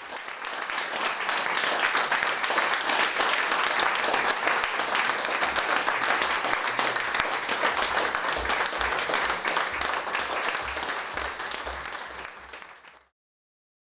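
Small audience clapping for the actors' bows at the end of a performance, a dense patter of many hands that swells over the first couple of seconds, holds steady, then fades out near the end.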